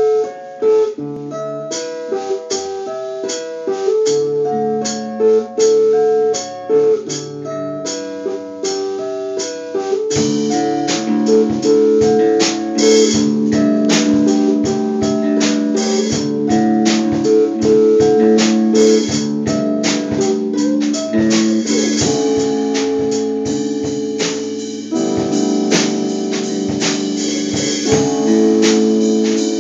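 A small band playing live: a drum kit keeps time under held, amplified chords. The band gets louder and fuller about ten seconds in.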